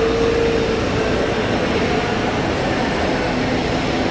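Jet airliner engines running on the airport apron: a loud, steady rushing noise, with a humming tone that fades out about a second in.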